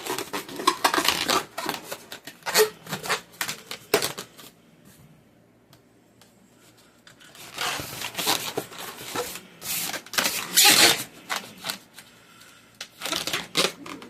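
Latex modelling balloons being handled and twisted: squeaky rubbing and crackling of the rubber. It stops for a few seconds about four seconds in, then starts again.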